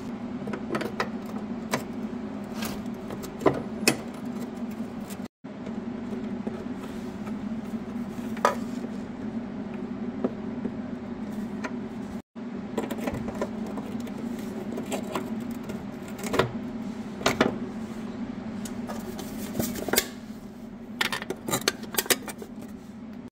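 Wrench and hands working a Honda Integra's rear brake line fitting and its retaining clip: scattered light metallic clicks and clinks over a steady low hum, with a thin aluminium can handled near the end.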